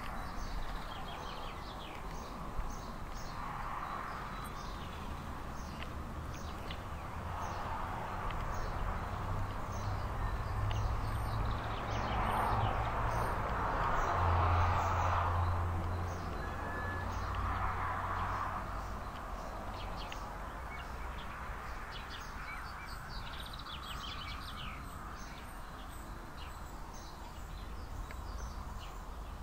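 Small birds chirping throughout, over a broad rushing noise that swells and fades several times and is loudest about halfway through.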